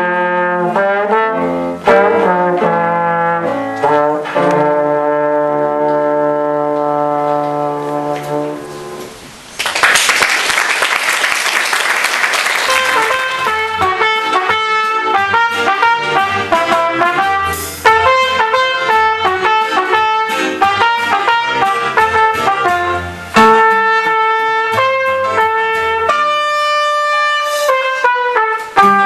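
Brass ensemble of trumpets and trombones playing: held chords that die away about nine seconds in, a loud burst of noise lasting about three seconds, then the brass comes back with shorter, detached notes.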